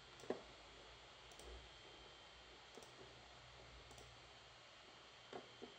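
A few faint computer mouse clicks over low background hiss: one sharper click about a third of a second in, and two more close together near the end.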